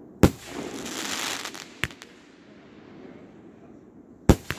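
Multi-shot consumer fireworks cake firing: a loud bang about a quarter second in, followed by about a second of noise that dies away, and a smaller pop. Near the end the next shot goes off with two sharp bangs in quick succession.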